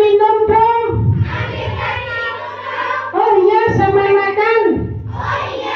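Adult voices pitched up into a high, child-like voice, giving two long drawn-out calls, one at the start and one about three seconds in, with talking between them.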